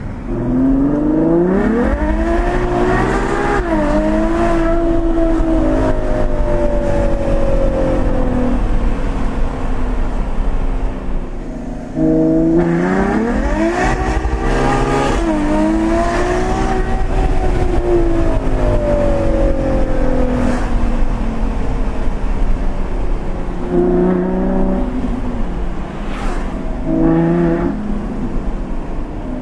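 Ferrari FF's 6.3-litre V12, heard from inside the cabin, pulling hard twice. Each time the revs climb steeply, then there is a quick dip at the upshift, and then the pitch sinks slowly as the car rolls on. A few short bursts of revs come near the end.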